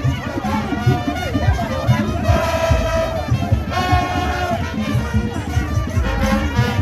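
Loud festival dance music: horn lines over a steady, pounding drum beat.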